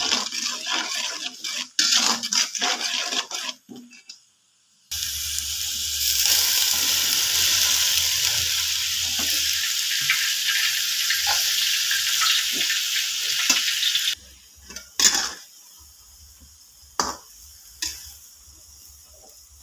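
Food frying in hot oil in a pan: a loud, steady sizzle starts about five seconds in and cuts off abruptly about nine seconds later. Before it there is clattering, and after it come a few sharp knocks.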